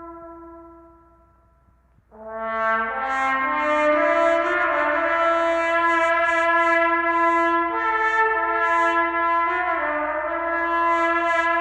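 Recorded music intro: a single held note fades away over the first two seconds, then after a brief gap a brass section led by trumpets comes in, playing long sustained notes that step from one pitch to the next in layered harmony.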